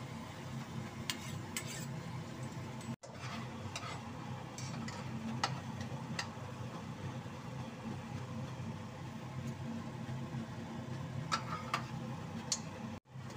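Metal spatula scraping and tapping against a wok as meat and vegetables are stir-fried, in scattered strokes over a steady low hum.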